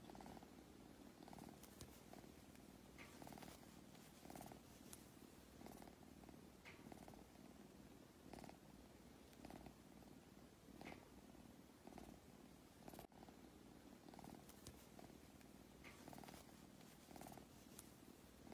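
Tabby kitten purring softly and steadily, the purr swelling and easing in a slow rhythm about every second and a half as it breathes in and out.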